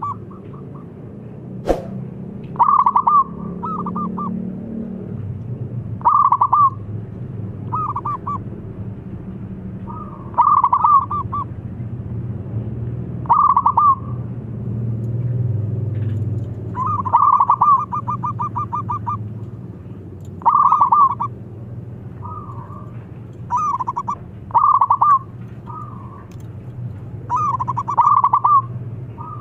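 Zebra dove cooing: short phrases of rapid, stuttering notes repeated every second or two, one longer rolling phrase about two-thirds through. A single sharp click near the start, over a steady low hum.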